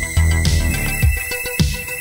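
Electronic background music with a steady beat of about two strokes a second; the deep bass thins out about halfway through.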